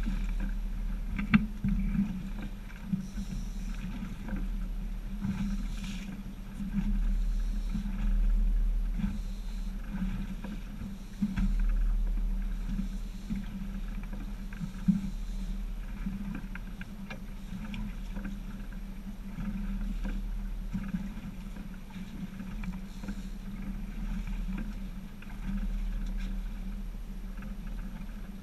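A small boat at sea, with water washing and slapping against the hull over a steady low drone and rumble, and a few sharp knocks.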